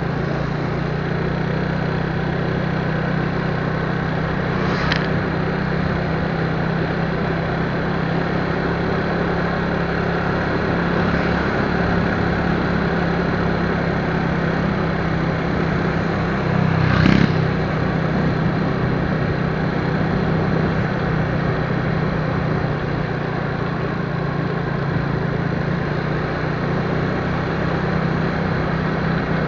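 A vehicle's engine running steadily under a constant hiss of road noise while driving. Two brief knocks break through, the louder one past the middle.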